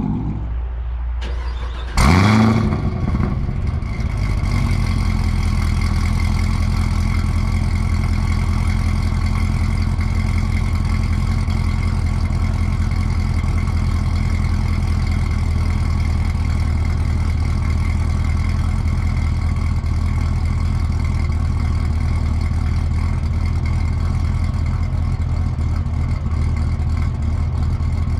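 Chevrolet Camaro ZL1's supercharged LT4 V8 on a loud headers exhaust firing up about two seconds in, revs flaring briefly and settling into a steady, loud idle.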